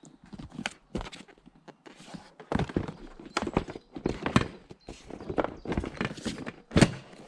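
A motorcycle seat being refitted: a run of irregular sharp knocks and clunks of the plastic seat against the bodywork, with the loudest clunk near the end.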